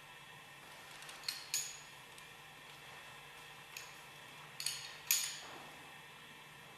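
Steel tools clinking against the separator bowl's pin spanner and lock ring: five sharp metallic clinks with short ringing tails, two in quick succession just over a second in and the loudest about five seconds in.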